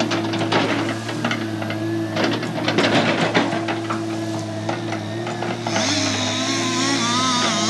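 Caterpillar tracked excavator's diesel engine running steadily while the machine works through brush, with repeated cracking and snapping of limbs for the first several seconds. About six seconds in, the engine note rises and falls as the hydraulics take load.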